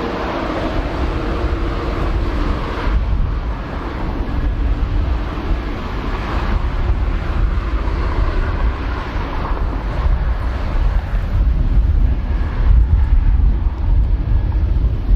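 Jet noise from a Boeing 747-8 freighter's four GEnx-2B engines as it comes in to land: a deep, steady rumble that grows louder toward the end, with wind buffeting the microphone.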